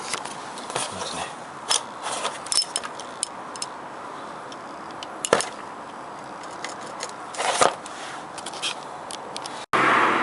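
Scattered metal clinks and scrapes of an oil filter wrench being fitted around a car's oil filter, over a steady hiss. Near the end the sound cuts out for a moment and the hiss comes back louder.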